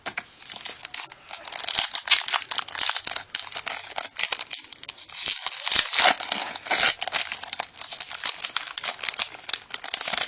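Foil Yu-Gi-Oh booster pack wrapper crinkling and tearing as it is opened by hand: a dense run of sharp crackles.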